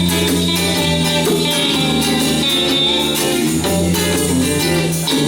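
Live band playing an instrumental passage between sung lines of a song, led by guitar over a sustained bass line.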